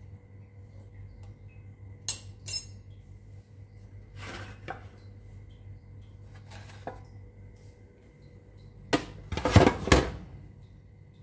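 A metal spoon clinking and scraping against a metal oven tray of sliced tomatoes and onions, in a few separate knocks, then a louder cluster of clattering near the end, over a faint steady hum.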